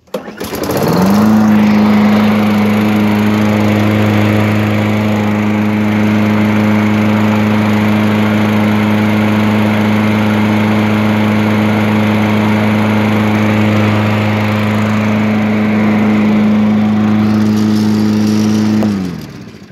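Tecumseh LEV120 four-stroke lawn mower engine starting, running up to speed within about a second and holding a steady full-throttle note, then shut off and winding down near the end. It is governed at about 3170 RPM, just over its 2950 ± 150 RPM spec, and runs smoothly.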